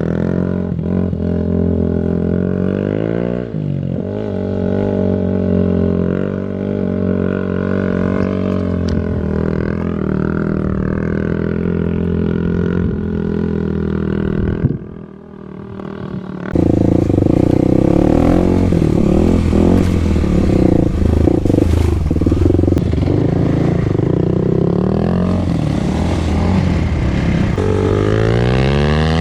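Kawasaki KLX300's single-cylinder four-stroke engine running through a Barker's aftermarket exhaust, its revs rising and falling. It drops off briefly about halfway, comes back louder, and revs up again near the end.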